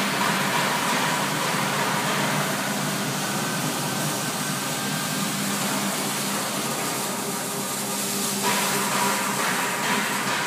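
Bakery spiral dough mixer running with dough in its stainless steel bowl: a steady motor hum under a hiss, with the hiss thinning about eight seconds in.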